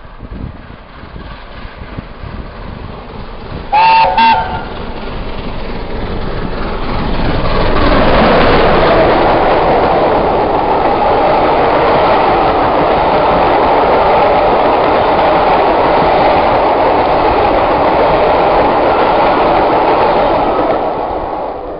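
Steam locomotive 60163 'Tornado', an LNER A1 Pacific, sounds its whistle in two short blasts. The train then passes at speed: a loud, steady rush of the engine and coaches over the rails that builds and fades away near the end.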